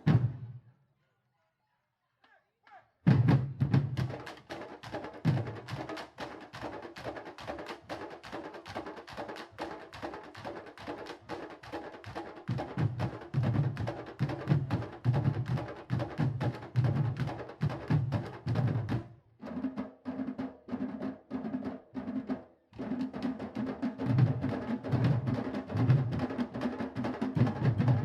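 Candombe drum line playing: hand-and-stick drums with a low pounding pulse and sharp stick clicks on the wood. The drumming cuts in after about three seconds of near silence, drops out briefly twice a little past the middle, then carries on.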